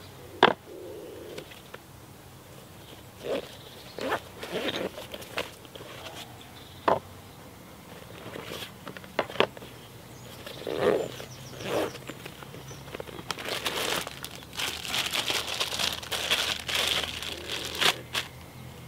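Plastic food packaging and bags crinkling and rustling as they are handled and unpacked, with scattered clicks and knocks. The crinkling gets dense for several seconds near the end.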